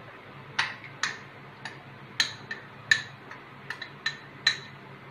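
Steel spoon clinking and scraping against a glass mixing bowl as thick ground-chicken paste is scraped off it: about ten sharp, irregular clinks, each with a short ring.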